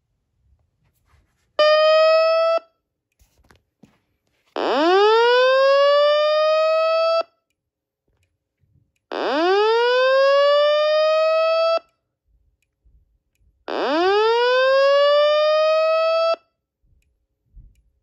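Simplex fire alarm speaker sounding an evacuation tone: one short steady tone, then three long whoops, each rising in pitch over about two and a half seconds, with silent gaps between them.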